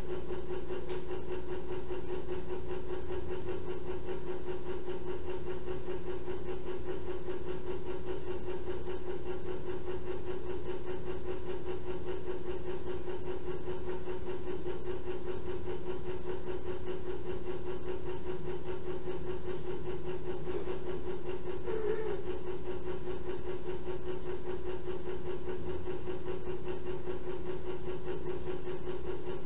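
Steady machine hum with one constant pitched tone and fainter overtones, even and unchanging throughout.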